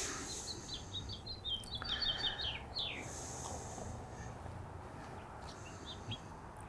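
A small bird singing: a run of quick, high chirps and short falling notes about one to three seconds in, then a couple more near the end, over a faint outdoor hiss.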